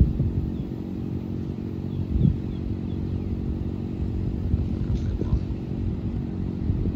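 Steady low engine rumble with a few thuds, and faint high chirps of birds.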